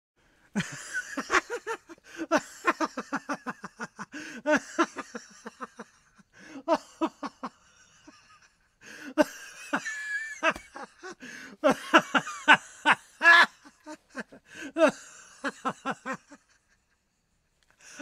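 A man laughing hard in long bouts of fast 'ha-ha' pulses, about six a second, broken by two short pauses and stopping a little before the end.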